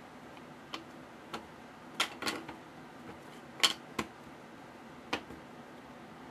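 A series of short, sharp clicks, about seven of them spread irregularly, some in quick pairs, over faint room hiss.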